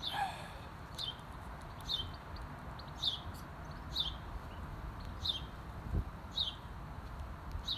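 A small bird repeating a short, high, falling chirp about once a second, over a low rumble of wind on the microphone.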